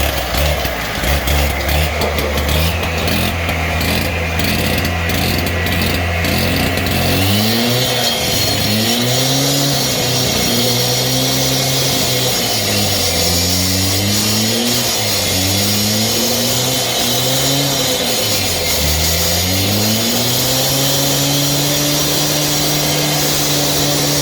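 Husqvarna two-stroke concrete cut-off saw running at low revs for about seven seconds, then opened up. Its revs dip and recover several times, as when the blade is loaded in concrete, then hold steady and high near the end.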